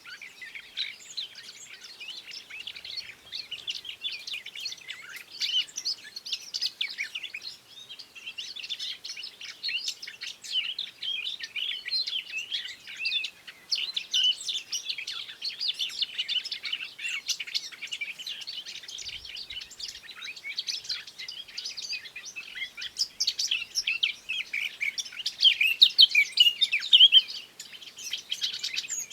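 Songbirds chirping and singing in a dense stream of rapid, high, overlapping chirps, loudest near the end.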